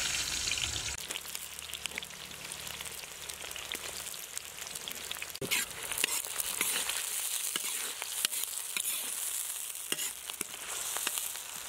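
Sliced onions frying in hot oil in a wok, with a steady sizzle that is loudest in the first second after they go in. A metal spatula scrapes and clicks against the pan as it stirs them.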